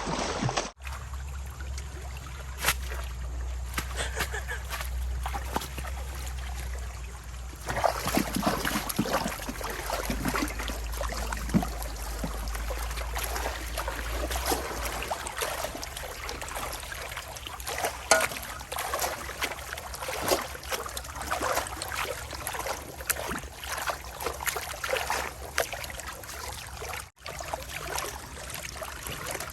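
Stream water splashing and trickling, with irregular sloshing and crackles throughout. A low steady hum sits underneath and stops about halfway through.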